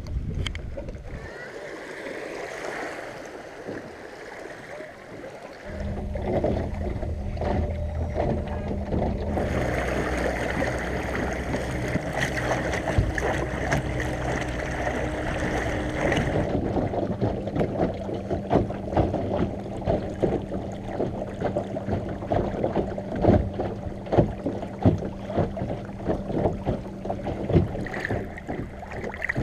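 Water lapping and slapping against the hull of a small boat under way on a lake, with frequent short splashes. A steady low hum comes in about six seconds in and holds under the water sounds.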